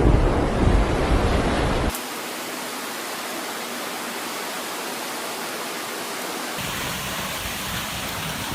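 Steady hiss of heavy rain. For the first two seconds a deep rumble of thunder runs under it and then cuts off abruptly; a lower rumble comes back near the end.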